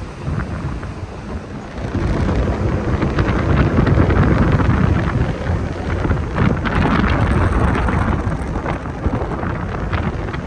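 Wind buffeting the microphone on a moving tour bus: a heavy low rumble that swells and eases in gusts, with the bus running underneath.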